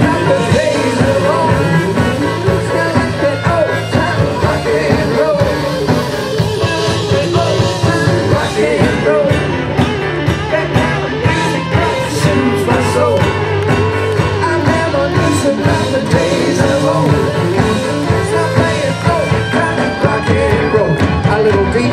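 Live rock and roll band with drum kit and singing, played loud through a PA.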